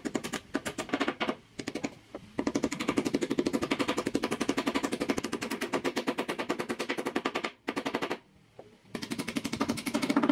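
Small metal-headed hammer tapping rapidly on pale wooden bowtie and X-shaped inlay pieces, seating them into their recesses in a dark hardwood slab. The taps come in long fast, even runs, with brief pauses about two seconds in and again for about a second near the end.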